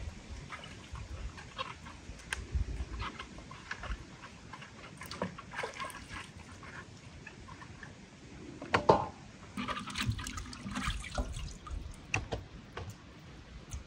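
Quinces being washed by hand in a large pot of water: water sloshing and dripping as the fruit is rubbed and lifted out, with scattered light knocks and one louder knock about nine seconds in.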